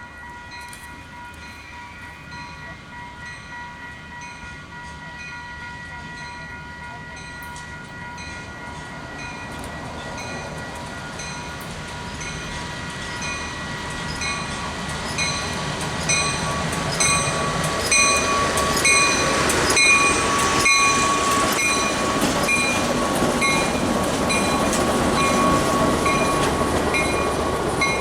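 Baldwin S12 diesel switcher locomotive approaching, its engine growing steadily louder as it nears. A bell rings steadily, about once a second.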